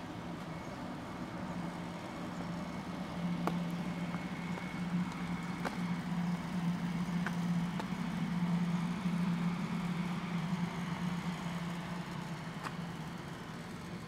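Motor vehicle engine hum, steady and low, growing louder through the middle and easing off again, as of a car going slowly by. A few light clicks sound now and then.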